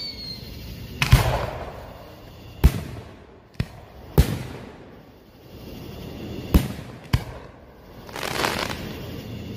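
Aerial fireworks shells bursting: six sharp booms in irregular succession, some followed by a crackling hiss, with another crackling swell near the end.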